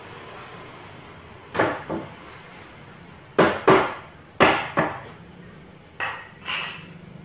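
Plywood boat-seat panels being knocked and worked loose by hand for dismantling: eight sharp wooden knocks and clatters, coming in pairs, loudest in the middle.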